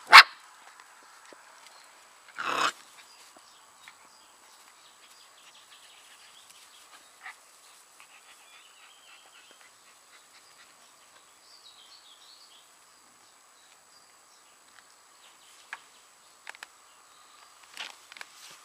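Samoyed puppies playing: a sharp yip right at the start and a louder short bark about two and a half seconds in, then mostly quiet with small rustles and a few faint bird chirps.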